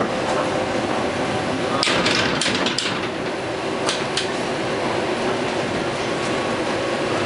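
Steady running noise of an EP2D electric multiple unit heard from inside the passenger car while it travels at speed. About two seconds in comes a cluster of sharp knocks, and two more about four seconds in.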